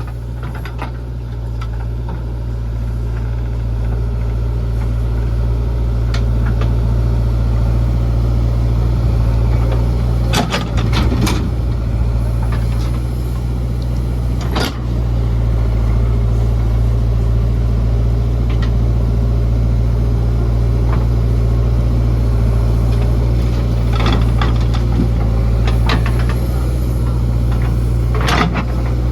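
Diesel engine of a JCB 3DX backhoe loader running steadily under work, growing louder over the first few seconds, with a few short sharp knocks scattered through it.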